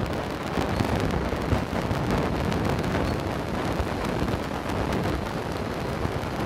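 Wind buffeting the microphone, a steady low rumble without a break.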